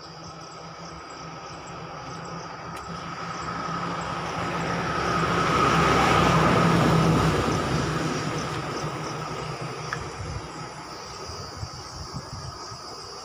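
A road vehicle passing by: a rush of engine and tyre noise that builds, is loudest about six to seven seconds in, then fades away. Insects buzz steadily underneath.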